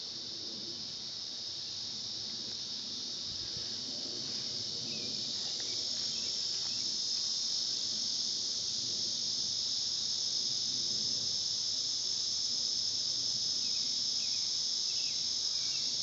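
A dense chorus of insects singing, a continuous high shrill that slowly grows louder.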